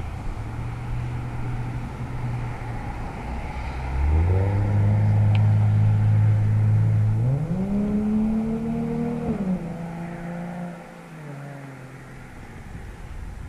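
A motor vehicle's engine accelerating: its pitch rises sharply about four seconds in, holds steady, climbs again to its loudest, then drops and fades away near the end.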